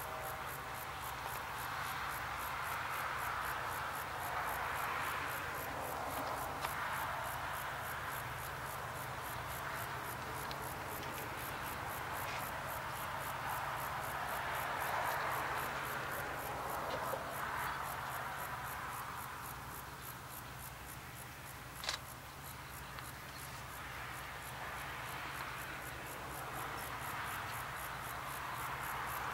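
Insects chirping in a steady rapid pulse over a rushing noise that swells and fades every few seconds. A single sharp click sounds about 22 seconds in.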